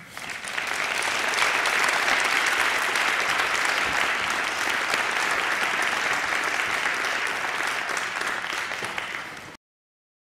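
Audience applauding: clapping builds over the first second, holds steady, and cuts off suddenly near the end.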